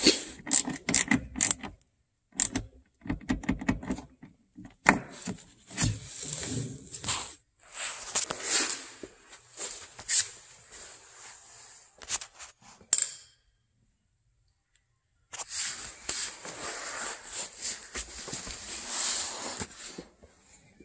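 A hand socket ratchet clicking in quick runs on a bolt under the car, then rustling and clicking handling noise, broken about two-thirds of the way through by a gap of near silence lasting about two seconds.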